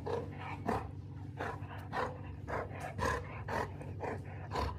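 A dog growling low and steadily, broken by short, sharper noises about every half second. It is a possessive, play growl from a dog that won't give up what it is holding.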